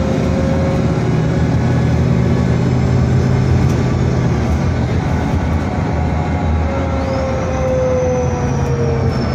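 Inside a moving VDL DB250 double-decker bus: low diesel engine drone and road noise. A drivetrain whine fades out within the first second. About seven seconds in, a whine comes back and slides slowly down in pitch, joined by a faint high whistle.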